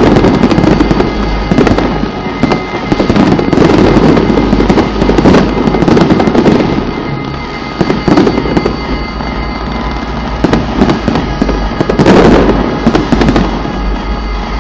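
Fireworks and firecrackers going off in a dense, continuous barrage: rapid bangs and crackling overlapping with no gaps, with a low rumble beneath. A loud burst comes about twelve seconds in.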